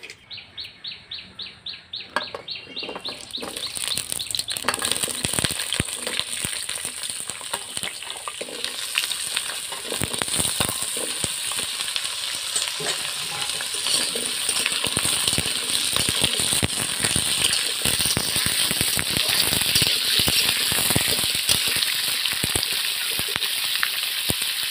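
Data stems and potato pieces frying in hot mustard oil in a metal kadai, sizzling, with a metal spatula scraping and clattering against the wok as they are stirred. The sizzle builds over the first few seconds and then holds.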